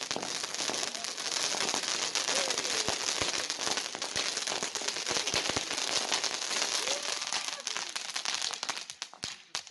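Fireworks going off: a dense, continuous crackle of many small rapid bangs, which thins out and dies down near the end.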